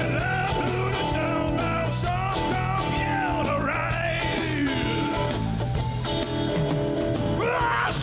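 A male singer singing a rock song with a live band of electric guitars and drums behind him.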